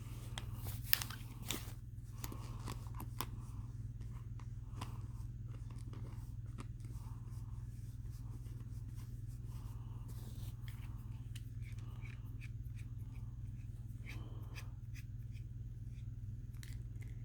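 Eleaf Aster 2 vape mod being handled and fired: a few sharp clicks in the first two seconds, then short spells of soft crackle from the atomizer coil, over a steady low hum. With this battery the old mod fires normally, without the misfiring of the new one.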